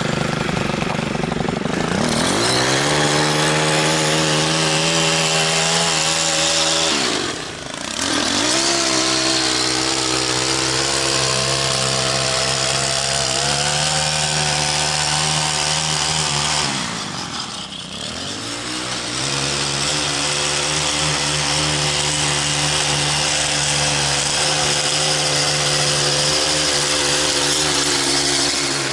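Gas string trimmer's small engine edging the lawn border, revving up to full speed about two seconds in and held there, with the throttle let off twice, around a quarter and again around three fifths of the way through, the pitch dropping and climbing back each time.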